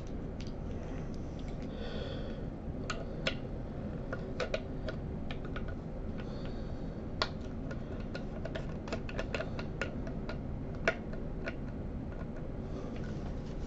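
Irregular small clicks and ticks of a screwdriver working on the metal parts of a Bausch & Lomb Stereozoom 7 microscope during its teardown, with a couple of brief higher scrapes, over a steady low hum.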